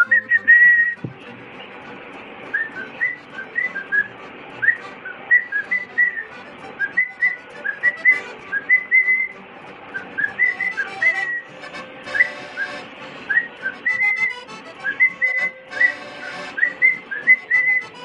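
Male cockatiel whistling: a long string of short, clear notes, most sliding upward, delivered in quick phrases with brief pauses between them.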